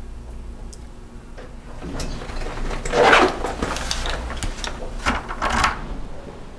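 Handling of a wooden apartment door: a few faint clicks, then rustling and clattering from the latch and handle, loudest about three seconds in.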